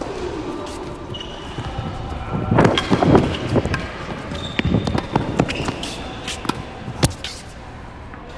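Tennis ball being struck and bouncing on the court: a run of irregular sharp knocks of ball on racket strings and court surface, with the sharpest single knock near the end.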